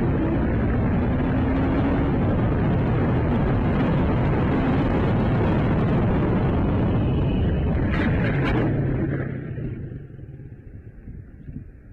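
A vehicle on the move: loud, steady road and wind noise with an engine tone under it. About eight seconds in there are a couple of sharp knocks, then the noise falls away to a much quieter level.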